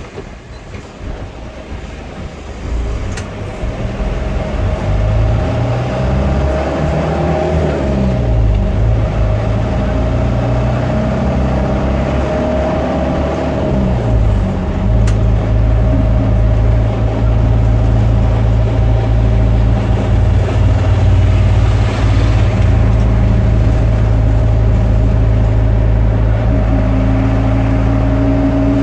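Motor vehicle engine running while under way, loud and steady. Its pitch falls twice, about 7 and 13 seconds in, as with gear changes, then holds level.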